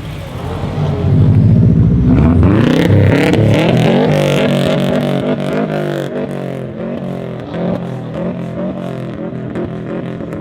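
Brabus-modified Mercedes GLE43 AMG's twin-turbo V6 revving up, its pitch climbing to a peak a couple of seconds in, then falling away with a long run of exhaust crackles and pops on the overrun.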